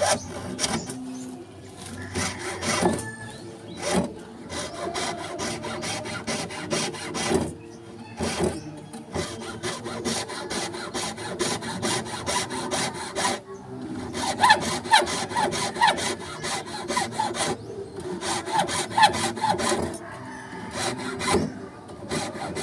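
Wood being cut with a hand saw: quick back-and-forth strokes in runs of several seconds, broken by brief pauses.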